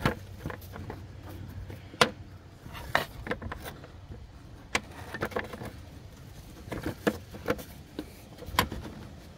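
Plastic engine cover of a Lincoln Town Car being lined up and pressed into place by hand: scattered sharp clicks and knocks of the plastic at irregular intervals, over a low rumble.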